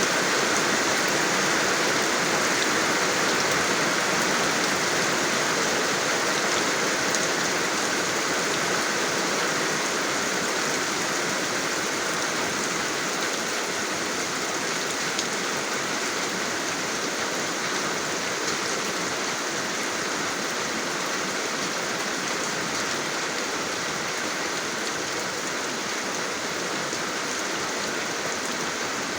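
Steady rain falling, a dense even patter of drops on surfaces with no single sound standing out.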